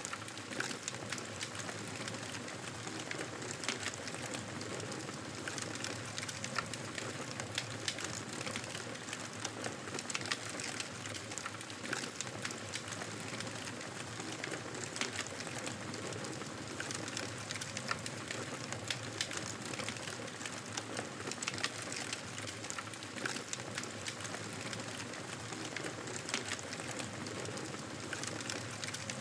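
Campfire crackling, with many small snaps and pops over a steady hiss.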